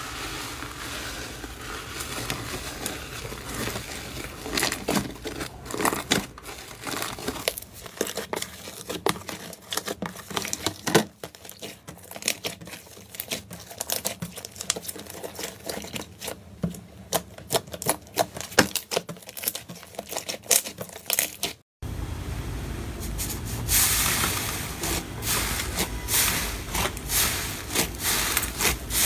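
Slime being stretched, squeezed and pressed by hand, with many small sticky pops and clicks. After a short break about two-thirds of the way in, a fluffy slime topped with glitter flakes is pressed, giving denser crackling.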